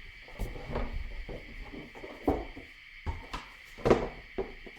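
Cardboard board-game boxes and components being handled: irregular knocks, taps and rustles, the loudest about four seconds in. A faint steady high tone hums underneath.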